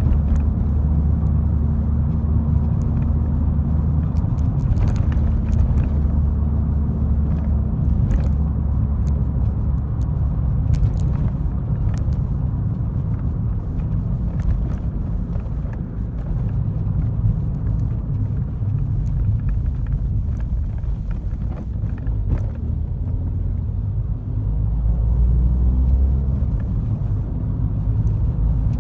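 In-cabin driving noise of a Chevrolet Corsa: a steady low engine and road rumble with a few light knocks, swelling louder briefly near the end.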